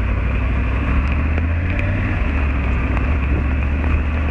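Triumph Tiger 850 Sport's 888 cc inline-three engine running as the motorcycle pulls away at low speed. A steady hiss of wind and wet road rides over the deep engine thrum.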